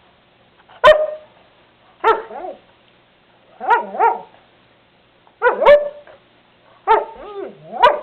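A pet dog's 'I love you' vocalising: about six short barks and yowls, several in two parts with the pitch sliding. Near the end comes a longer call that dips and rises in pitch.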